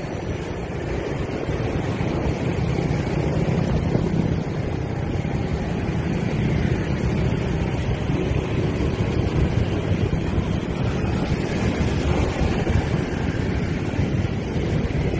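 Wind rushing over the microphone while riding, over the steady drone of surrounding motorbike and scooter traffic.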